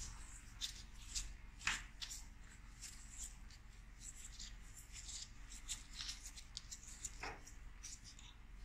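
Faint scraping and light clicking of a screwdriver tip working a rusty sling-swivel screw on an old rifle barrel, with two sharper taps, one about two seconds in and one near the end.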